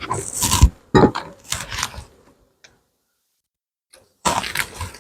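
Handling noise in short, irregular bursts of scraping and clattering during the first two seconds, then a silent gap, then another burst near the end.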